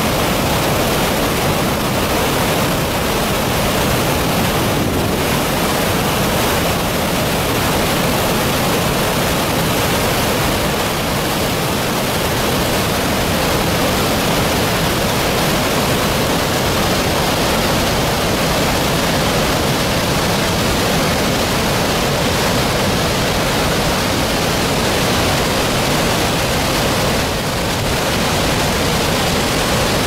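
Dettifoss waterfall's thunderous roar, a loud, steady rushing of a huge volume of glacial river water plunging over the brink and churning at its foot.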